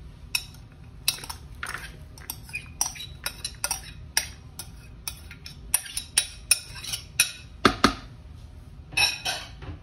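A spoon knocking and scraping against a dish in a quick, irregular run of clinks as chopped onion is added to a rice-and-meat stuffing mixture. The knocks are loudest past the middle, and there is a longer scrape near the end.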